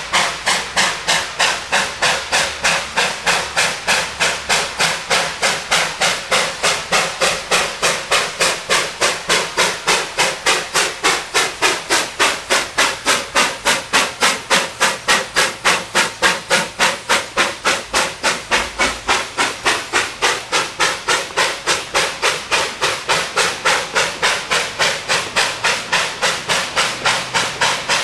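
Narrow-gauge NA class 2-6-2T steam locomotive working hard up a grade with a loaded goods train: a fast, even run of exhaust chuffs, about three to four a second, as it passes close by.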